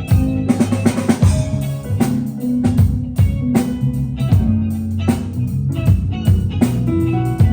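A band playing: drum kit beating a steady rhythm under guitar and low bass notes.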